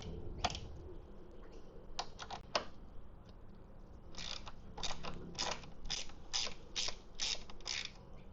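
Ratchet wrench clicking as a bolt is undone: a few scattered clicks, then from about four seconds in a regular run of about two clicks a second.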